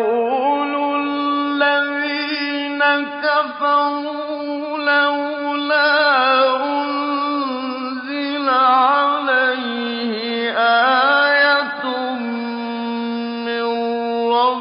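A solo male voice reciting the Quran in slow, melodic tajweed chant: long held notes with wavering, ornamented turns of pitch, drawn out as one sustained phrase.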